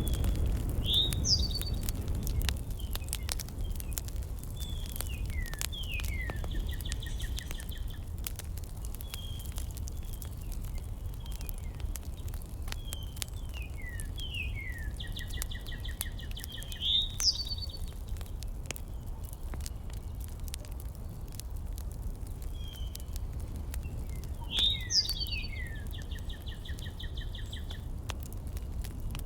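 A songbird singing the same phrase about every eleven seconds: a few quick falling whistles, then a buzzy trill. It sounds over a steady low rumble with many faint scattered crackles.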